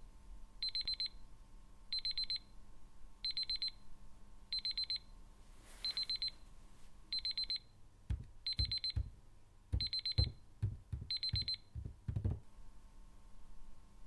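Smartphone alarm beeping: short groups of rapid high-pitched beeps, repeating about every second and a third, stopping near the end. Several low knocks sound in the last few seconds of the alarm.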